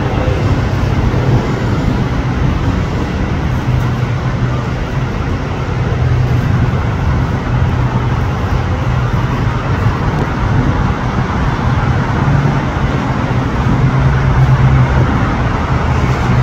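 Jet engines of an Airbus A320-family airliner in a steady, loud rumbling roar as it climbs away after take-off.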